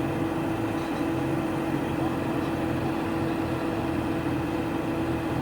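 Excavator's diesel engine running steadily, with a constant drone and a held tone over it.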